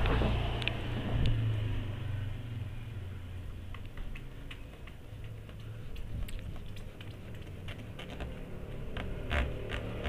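Small, irregular ticks and light crackles of plastic polarizer film being rubbed down onto LCD glass with a folded tissue pad. The ticks start a few seconds in and come thicker near the end, over a low rumble that is loudest at the start.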